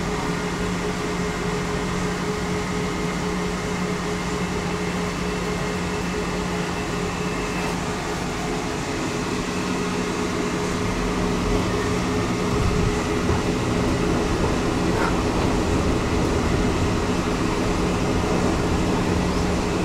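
Inside a tram running along the line: a steady electrical and ventilation hum over the rumble of wheels on rails, which grows a little louder and deeper about halfway through.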